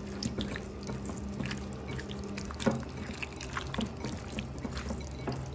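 A hand squishing raw red snapper pieces with turmeric and salt in a glass bowl: wet squelching with many small scattered clicks.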